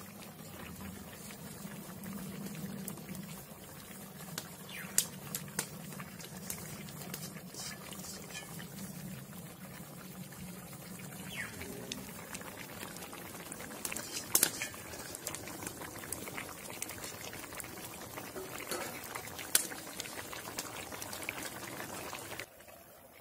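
Fish curry of snakehead with cauliflower, potato and tomato simmering in a black karahi, bubbling steadily, with a few sharp pops about 5 s in, midway and near the end.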